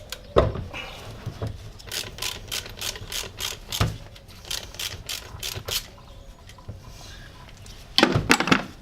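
Ratchet clicking in quick runs as the nut of a car battery's positive terminal clamp is undone, with a louder clatter near the end.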